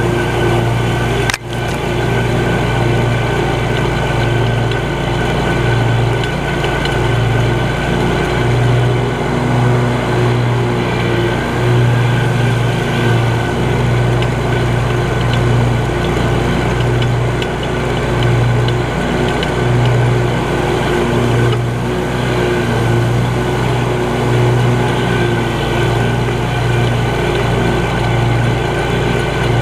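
Scag Cheetah 52 zero-turn mower's engine running steadily under load while mowing, with one brief dropout about a second and a half in.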